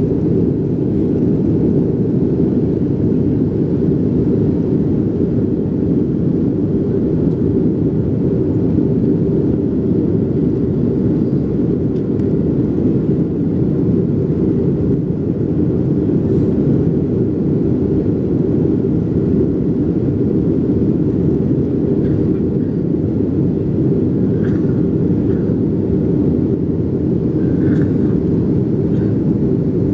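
Steady drone of a Boeing airliner's jet engines and rushing air, heard inside the cabin as the plane climbs after takeoff.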